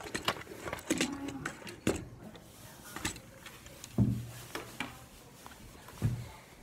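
Handling noise from a camera being picked up, moved about and set against a wooden table: irregular knocks and bumps with rubbing between them, and heavier thuds about four seconds in and near the end.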